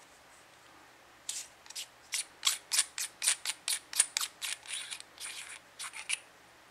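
Threaded windage/elevation turret cap on a Burris Droptine riflescope being twisted by hand, a run of short scratchy rasps at about four a second for some five seconds.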